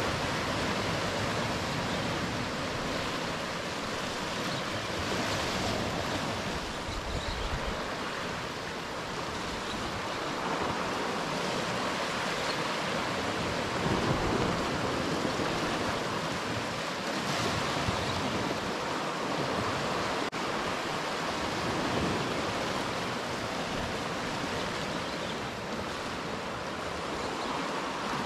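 Sea surf washing against a rocky shoreline: a steady rush of waves that swells and eases a little now and then.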